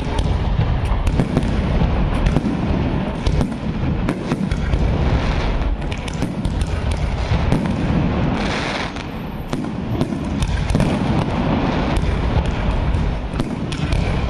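Fireworks display: a continuous barrage of launches and bangs from shells bursting overhead, many sharp reports packed closely together over a constant rushing.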